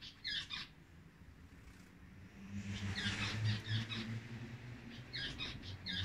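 Female rosy-faced lovebird giving short, sharp chirping calls in quick clusters: a couple near the start, a dense run in the middle, and more near the end. They are the calls of a lone hen whose mate has flown away.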